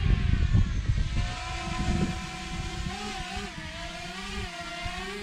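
DJI Mini 2 drone's propellers whining just after a hand launch. The sound is loud at first over a heavy low rumble, then softer after about a second and a half, its pitch wavering up and down as it hovers.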